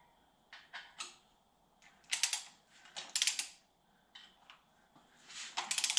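Hand ratchet wrench clicking in three short runs, about two, three and five and a half seconds in, with a few single clicks between, as the rocker assembly on an air-cooled VW engine's cylinder head is tightened down.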